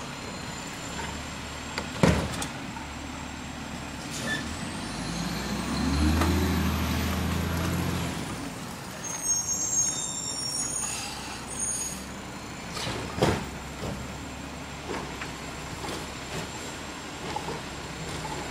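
Garbage truck working the curbside bins: its engine revs up for about four seconds with a rising pitch, with sharp clunks about two seconds in and again near the middle, and smaller knocks later on.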